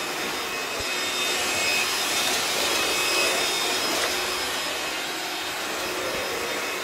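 Cordless vacuum cleaner running steadily: an even rushing whir with a faint high whine.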